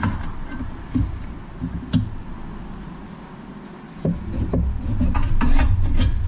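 Knocks and clicks as the front lower control arm of a Hyundai Santa Fe is handled and shifted into line. A few sharp clicks come in the first two seconds, then from about four seconds in a rumbling scrape with several knocks as the arm is moved.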